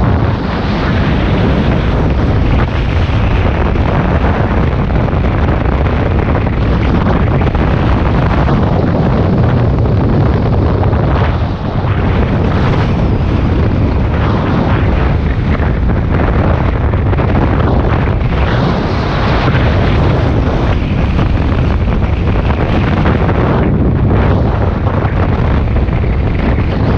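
Loud, steady wind rumble on the microphone, heaviest in the low end and fluttering in level.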